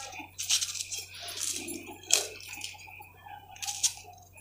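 Knife cutting green chillies held in the hand, with the pieces dropping into a pot of chopped cucumber: a few short, light clicks and taps at uneven intervals.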